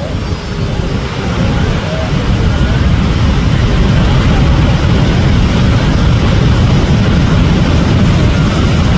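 Steady, loud roar of Niagara Falls, heavy in the bass, which swells a little over the first two seconds and then holds. Faint voices of onlookers are heard in the first few seconds.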